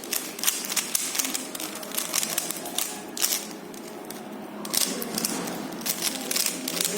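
Plastic Rubik's cube being turned fast during a speed-solve: irregular clicking and clacking as the layers are twisted.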